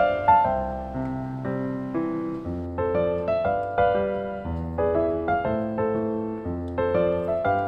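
Solo piano background music: a cheerful tune of chords over bass notes, struck in a steady rhythm.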